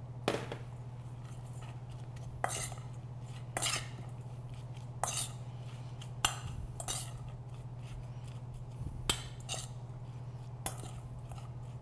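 A metal spoon clinking and scraping against a stainless steel mixing bowl while cabbage salad is stirred with mayonnaise: irregular sharp clinks about every second or two, over a steady low hum.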